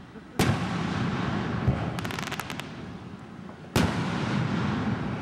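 Aerial fireworks shells bursting: two loud booms about three seconds apart, each trailing off in a long echo, with a quick run of crackles about two seconds in.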